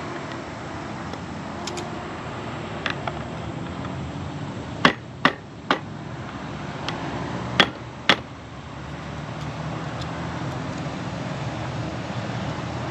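Several sharp clicks or knocks from hand tools on the awning hardware, some in pairs about half a second apart, over steady background noise.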